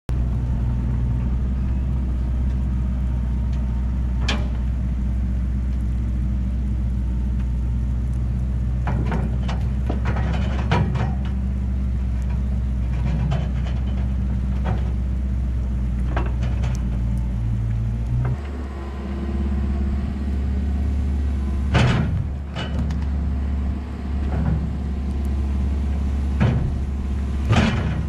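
Kubota KX121-3 mini excavator's diesel engine running steadily, its note changing about eighteen seconds in, with scattered sharp knocks and clunks, the loudest two in the second half.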